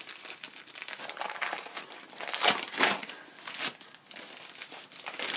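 Newspaper wrapping being crumpled and pulled off a book parcel by hand: a run of irregular paper crinkles and rustles, loudest about two and a half to three seconds in.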